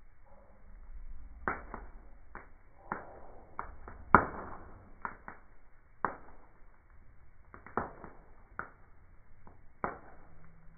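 Wood fire burning on a fireplace grate, crackling with irregular sharp pops, the loudest about four seconds in.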